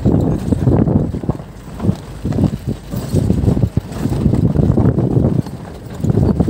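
Wind buffeting the microphone in an irregular low rumble, with scattered short knocks.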